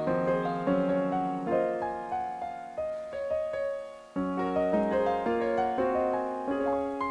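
Background piano music: a gentle melody of struck notes that fade away, dipping briefly about four seconds in before the next phrase starts.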